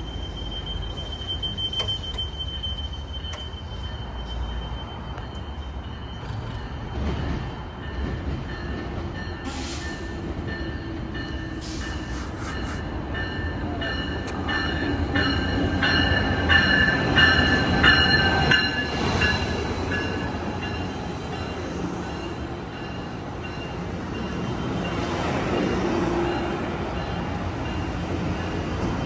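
Amtrak Pacific Surfliner passenger train of bilevel cars rolling in along the station platform, rumbling, with a high-pitched squeal from the train that is loudest in the middle and a second swell near the end.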